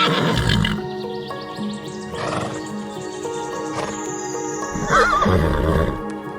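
Horse whinnying with a quavering pitch, once at the start and again about five seconds in, over background music with sustained notes.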